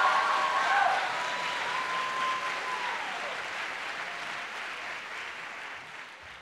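Audience applauding, loudest at first and fading gradually away.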